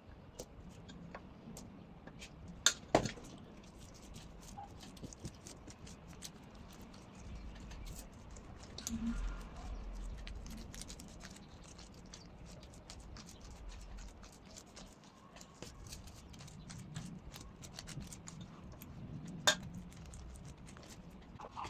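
Soft crackling and patting of gloved fingers pressing sticky sushi rice over a nori sheet on a plastic-wrapped bamboo rolling mat, with many small ticks. A few sharp clicks stand out, the loudest about three seconds in and near the end, and a low rumble comes in the middle.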